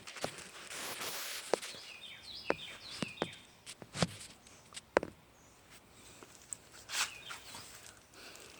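Scattered footsteps and sharp knocks and clicks of someone moving about and handling things, with a few short high chirps about three seconds in.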